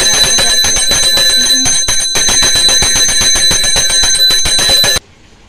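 Small hand-held puja bell (ghanti) shaken rapidly and continuously, its clapper striking many times a second over a steady high ringing. The ringing stops abruptly about five seconds in.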